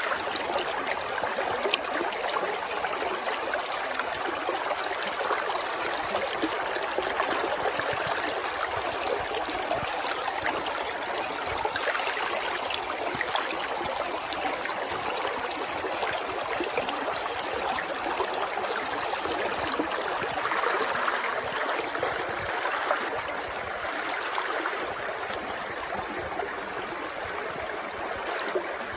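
Clear mountain brook babbling steadily, its water running without a break.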